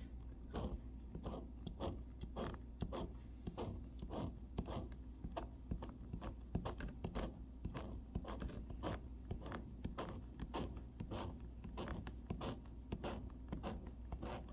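A scratch-off lottery ticket being scratched, with quick repeated scraping strokes on the ticket's coating, about three a second.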